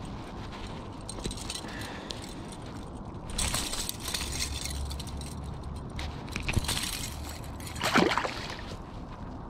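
Metal chain fish stringer clinking and its snap clips clicking as a yellow perch is clipped on, then a splash near the end as the stringer and fish drop into the lake; the splash is the loudest sound.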